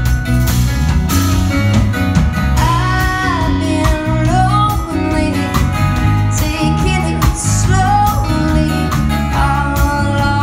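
Live band playing a song: a woman singing lead over acoustic guitar, electric guitar, electric bass and a drum kit, amplified through the stage sound system. The singing comes in after about two and a half seconds.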